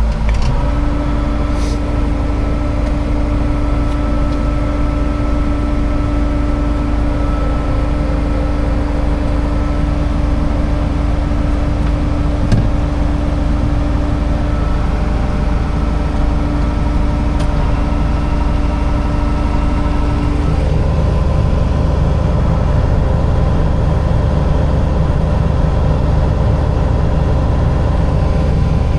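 Engine of a farm hauling vehicle running steadily, with a steady hum over it; about twenty seconds in the hum stops and the engine sound turns deeper and fuller.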